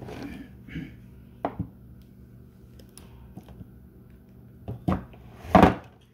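Metal food cans handled and set down on a wooden tabletop: a brief rustle, then a few separate knocks, the loudest near the end.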